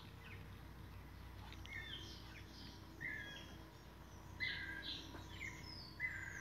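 Birds chirping: a run of short, high chirps, about eight of them, more frequent after the middle, over faint steady background noise.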